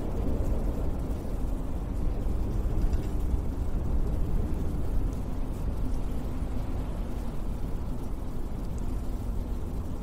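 Winter wind blowing snow, a steady deep rushing noise that swells and eases in gusts.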